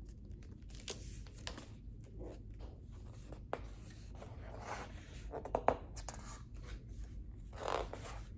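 Pages of a hardcover picture book being opened and turned: soft paper rustles and scattered small clicks and scrapes of handling, over a low steady room hum.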